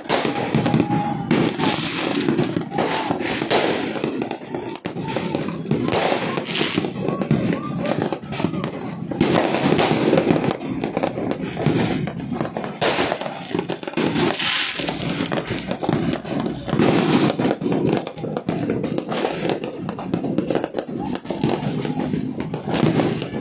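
New Year fireworks and firecrackers going off nonstop: a dense run of overlapping bangs and crackles with no break.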